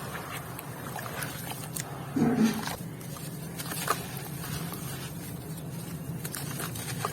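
Chunks of white cement being crumbled and crushed by hand, with scattered crisp crackles and a louder, duller crunch about two seconds in.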